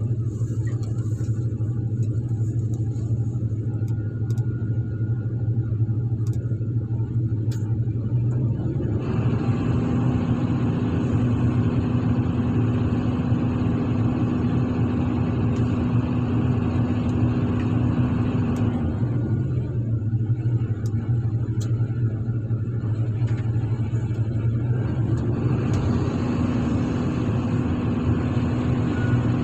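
Heavy excavator diesel engine running steadily. About 9 s in it swells into a fuller, stronger running note, drops back at about 19 s, and swells again at about 26 s.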